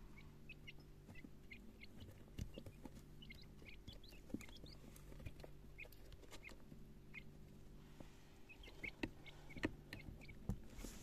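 Quail chicks peeping: many short, high chirps in quick scattered series, with a few sharp taps of pecking at the feed dishes, over a steady low hum.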